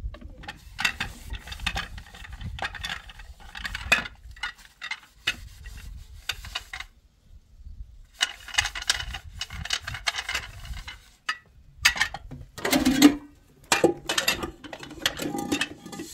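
Irregular clinks, scrapes and rubbing of dishes and utensils being handled, in short bursts with pauses and a louder burst near the end.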